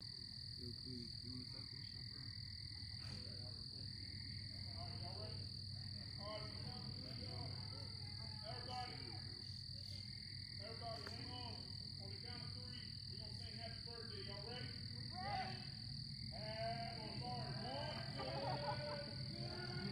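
Night chorus of frogs calling in many short, repeated croaks, growing busier toward the end, over a steady high-pitched drone and a low hum.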